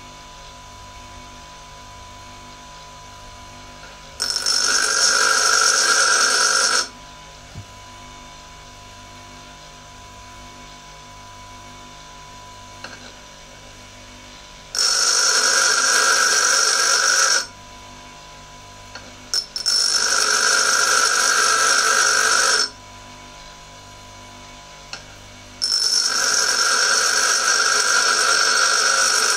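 Bench grinder motor humming steadily while a high-speed-steel parting-off tool is pressed against its coarse wheel four times. Each pass is a loud, high-pitched grind lasting two to four seconds, as side clearance is ground onto the tool.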